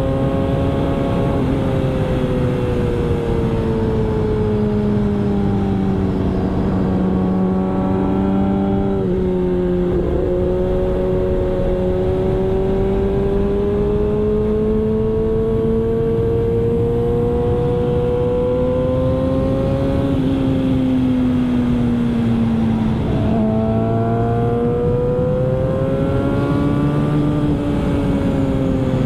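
Yamaha R6 inline-four engine running hard on a race track, its pitch slowly climbing and falling through long pulls, with two sudden brief dips, about a third of the way in and again near the end. A steady rush of noise lies underneath.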